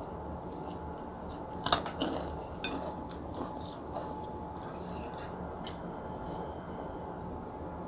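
Close-miked eating by hand: chewing and mouth sounds with scattered sharp clicks, the loudest a crisp click about two seconds in, over a steady low hum.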